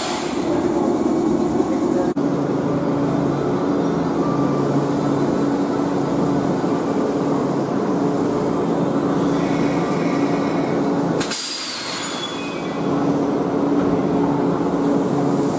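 A stationary Japanese electric train sounds loudly while its ends are switched at the terminal: a steady mechanical hum with a strong air noise, the brake-release sound of the end changeover. About 11 seconds in, a short sharp hiss of air breaks in.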